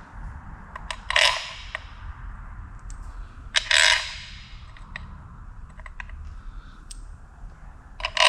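Steel cylinder head bolts clinking as they are handled and dropped into their holes in the engine's head. There are three louder metallic clinks with a brief ring, about a second in, near the middle and at the end, with lighter taps between them.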